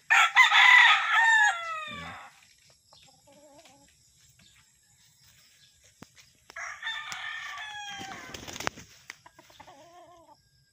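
Roosters crowing: a loud crow right at the start, a second crow about six and a half seconds in, and fainter crows from birds farther off in between and near the end.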